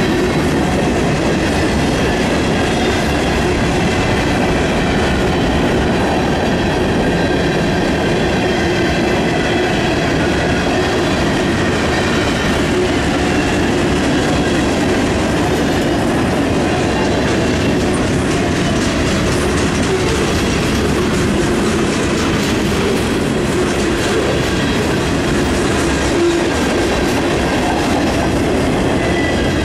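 Freight train cars rolling past close by: steel wheels on rail making a steady, loud rumble, with faint steady high tones over it.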